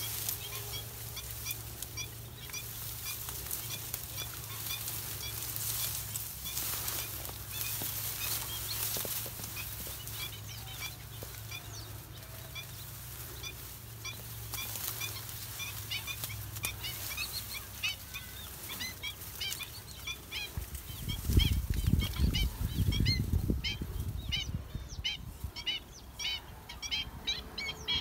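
A flock of birds calling: many short, high yelping notes, repeated and getting faster and more crowded toward the end. Around two-thirds of the way in, a loud low rumble hits the microphone for a few seconds.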